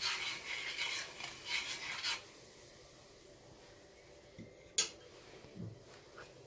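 Metal spoon stirring ground coffee boiling in a stainless-steel saucepan, scraping the pan in quick strokes for about two seconds and then stopping. A single sharp click about five seconds in.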